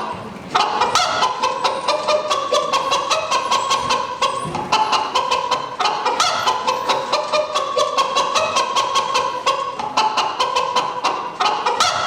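Music with a fast, steady percussive beat under a repeating melody.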